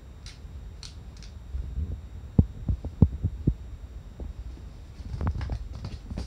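Kittens play-fighting and pouncing on a futon, then running onto a tatami floor: soft low thuds of paws and bodies, a quick run of about half a dozen thumps in the middle and another cluster near the end.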